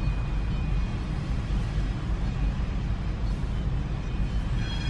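Steady low rumble of a freight train rolling through a grade crossing, heard from inside a car waiting at the crossing. Faint high steady tones come in near the end.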